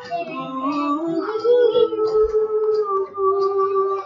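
Voices singing long, wordless held notes over backing music, with a few gentle slides between pitches.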